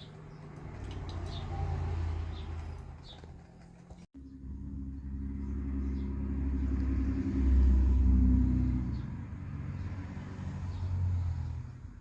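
A motor vehicle's engine rumbling as it goes by, swelling to its loudest a little past the middle and then fading. Faint songbird chirps sound above it.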